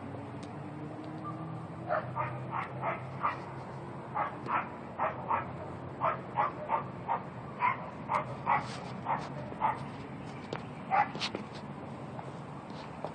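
A dog barking repeatedly, short sharp barks coming two or three a second in runs, from about two seconds in until near the end. A low steady hum lies underneath and fades away.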